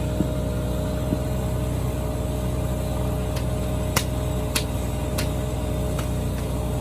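A motor vehicle's engine running steadily, a low continuous rumble with a few sharp clicks or rattles in the second half.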